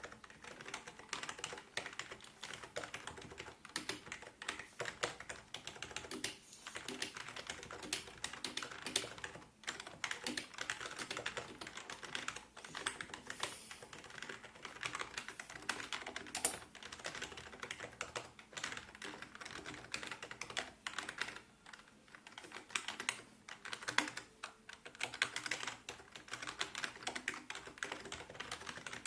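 Continuous typing on a Qsenn SEM-DT35 computer keyboard: a dense, steady run of key clicks, with a few brief pauses and one sharper strike about two-thirds of the way through.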